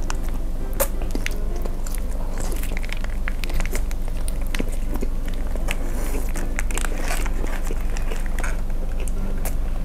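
Close-miked biting and chewing of a sausage coated in sticky gochujang sauce: many short wet clicks and crackles from the mouth. Background music plays underneath.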